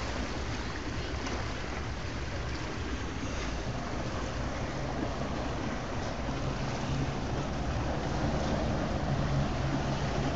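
Motorboat engine running at low speed, with wind and water noise over it. It grows slightly louder in the second half.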